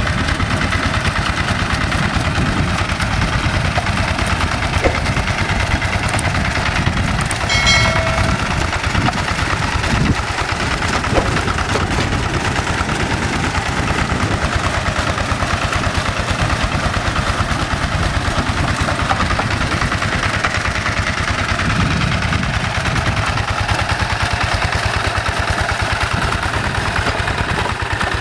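Hand tractor's single-cylinder diesel engine running steadily under load, pulling a plough through wet paddy mud. A brief high-pitched tone sounds about eight seconds in.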